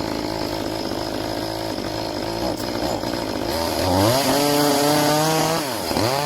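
Echo CS-2511WES top-handle two-stroke chainsaw idling, then revved up about three and a half seconds in and held high. Near the end the revs drop briefly and it is revved up again.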